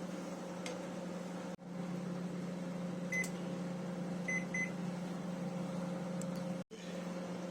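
Microwave oven running with a steady hum. A short high beep comes about three seconds in and two more about a second later, and the hum cuts out for an instant twice.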